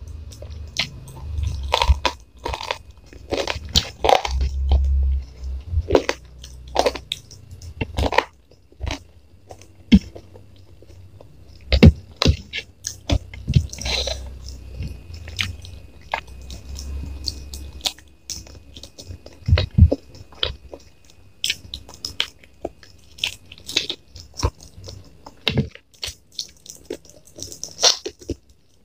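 Close-miked eating sounds: a person chewing and biting through a meal of fried noodles with rice and chicken, with irregular crunches and mouth clicks.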